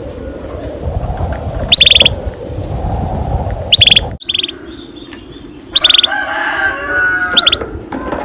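Canaries singing: loud, short, high-pitched chirps repeated about every two seconds, with a rolling trill underneath in the second half. The background hiss drops off abruptly about four seconds in.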